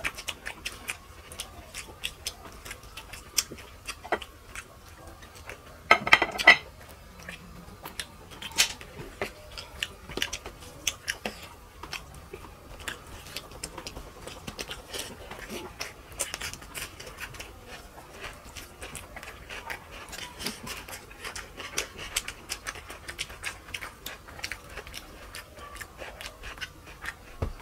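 People eating curry and rice by hand: chewing, lip smacking and fingers squishing rice, heard as many small wet clicks throughout, with one louder brief sound about six seconds in.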